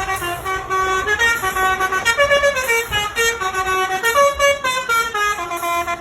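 Truck horn playing a tune: a quick run of short, held horn notes stepping up and down in pitch.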